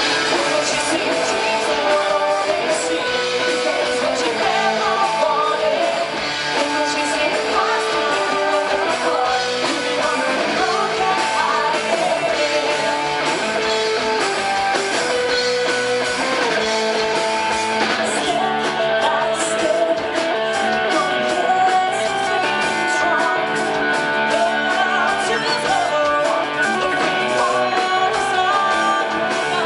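Rock band playing live, guitar-led, with singing.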